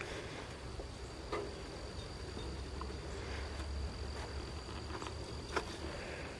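A steady high-pitched insect drone, with a few faint taps about a second in and near the end, over a low rumble of the camera being moved.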